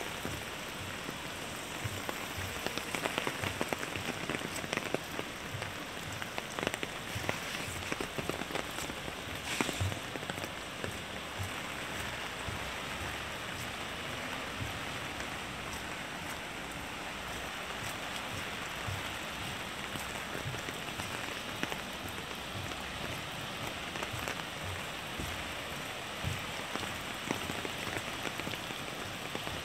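Steady rain falling, with many sharp taps of raindrops striking close by.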